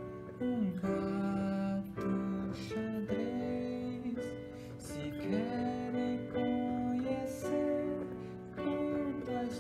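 A man singing a children's story-song over strummed acoustic guitar, holding long notes and sliding between them.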